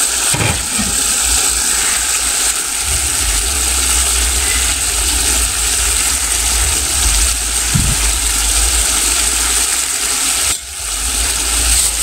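Chopped potatoes, cabbage, carrot and zucchini stewing in an uncovered frying pan over a raised flame, giving a steady sizzling hiss with a low rumble underneath. The sound dips briefly near the end.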